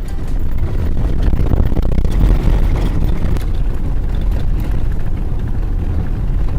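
Loud, steady low rumble and rush of a vehicle driving, with road and engine noise and no clear engine pitch.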